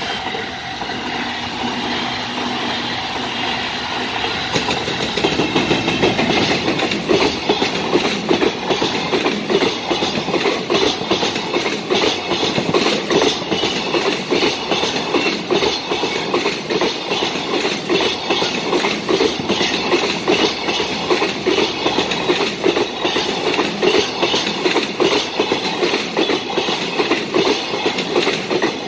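Container freight train passing close at speed, its wagon wheels clattering rhythmically over the rail joints. It gets louder about five seconds in.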